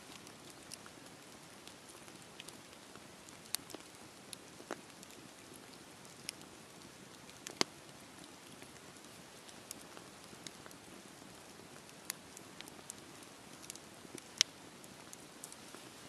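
Wood campfire burning: a soft steady hiss with scattered sharp crackles and pops from the burning logs, the loudest pops about halfway through and again near the end.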